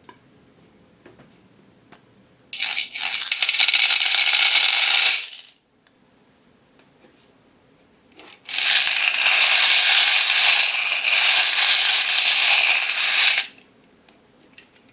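Many small plastic pearl beads pouring and clattering against a container: a dense rattle of tiny hard clicks, in two pours, the first under three seconds long and the second, from about eight and a half seconds in, about five seconds long.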